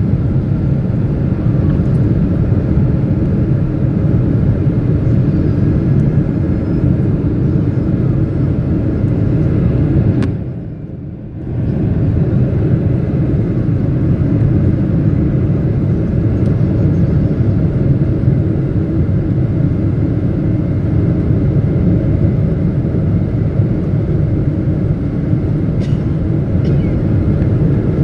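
Steady cabin noise inside a Boeing 777 on its landing approach: a low rumble of engines and airflow. About ten seconds in it briefly drops and goes muffled for a second or so, then returns to its steady level.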